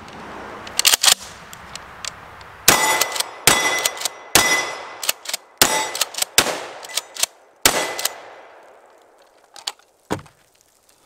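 A Remington 870 DM pump-action 12-gauge shotgun firing a string of about six shots, roughly one a second, with the slide racked between shots. A few sharp clicks come about a second in, before the first shot.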